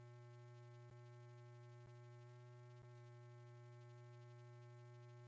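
Near silence: a faint steady hum with a few faint ticks about a second apart.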